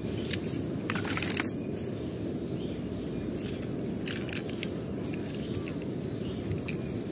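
Scattered light clicks and rattles of small toy cars being handled and picked out of a cardboard box of toys, over a steady low outdoor background noise.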